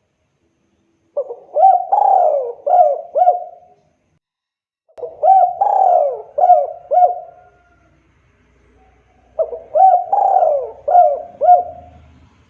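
Spotted dove (tekukur) cooing: three song phrases a few seconds apart, each a run of four or five rounded, rising-and-falling coos.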